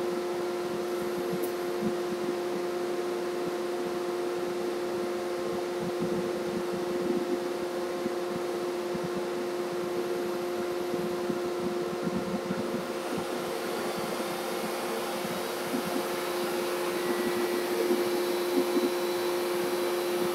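Steady hum of a CAMaster Stinger I CNC router setup with its dust collection running, with a strong steady tone throughout while the router head is moved across the table. A brighter hiss joins about two-thirds of the way in.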